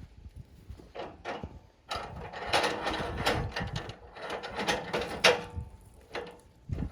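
Irregular metal clanks and rattles with knocks of wood, with the band sawmill not running: the cedar log being handled and clamped on the mill bed.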